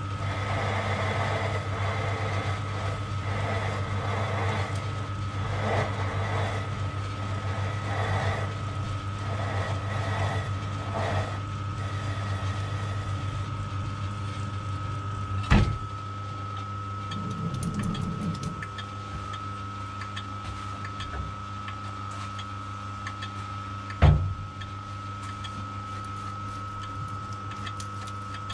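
Small metal lathe running with a steady motor hum and high whine while a tool cuts the end of a 3/8-inch bar. The cutting noise swells about once a second for the first ten seconds or so. Two sharp knocks come about halfway through and again later.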